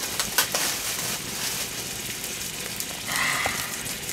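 Food sizzling in hot pans on a stovetop: a steady hiss with scattered crackles and pops. A brief high tone sounds about three seconds in.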